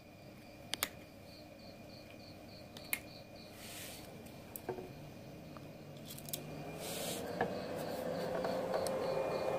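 A few sharp clicks as battery charger clips are handled on a motorcycle battery's terminals, then, from about six seconds in, a hum that rises in pitch and loudness and settles steady as the Otoheroes MF-2B battery charger starts charging.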